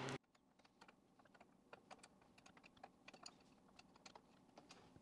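Near silence with faint, scattered small clicks as a wrench is fitted onto the metal brake-line fitting of a master cylinder held in a vise.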